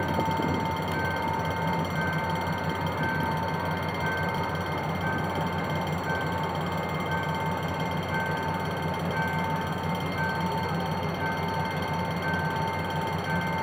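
Diesel-electric locomotives, a CSR SDD-7 and a GM GT-22CW, running with their engines at idle: a low pulsing hum under a steady whine, with a short high beep repeating about every 0.6 s.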